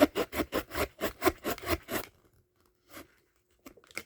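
A blade sawing rapidly back and forth through hard plastic blister packaging, about seven scraping strokes a second. The strokes stop about two seconds in, followed by a couple of light clicks.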